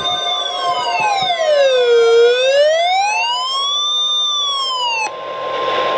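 Weather alert radio alarm: an electronic siren wailing slowly up and down, about one rise and fall every four seconds, over a steady high tone and pulsing beeps. The siren cuts off about five seconds in, leaving the steady tone over radio hiss.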